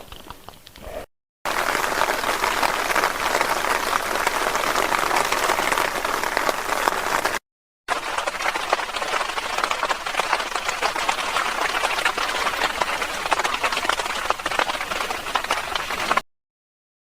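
Heavy rain falling, a dense, even patter of many drops. It breaks off twice for a moment and stops near the end.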